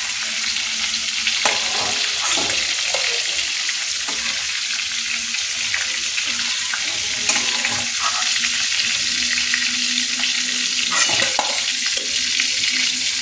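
Prawns frying in hot oil in a steel kadai, a steady sizzle, with a few sharp taps and scrapes of a utensil against the pan as the fried prawns are lifted out.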